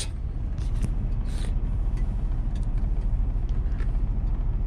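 Steady low rumble of a semi truck's diesel engine idling, heard from inside the cab, with a few faint light clicks and scrapes from handling the food and plate.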